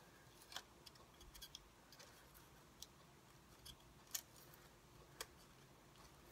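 Faint, scattered small clicks and taps, about a dozen, the sharpest just past four seconds in, from hands handling plastic plant pots while placing seeds into the soil.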